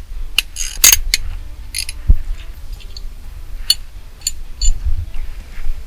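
Plastic clicks, snaps and a short scrape as the horn cap is pried off a square-body Chevy truck's steering wheel, with a low knock about two seconds in.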